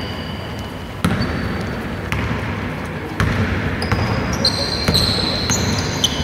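A basketball bouncing on a wooden court, a few sharp bounces about a second apart, with short sneaker squeaks on the floor.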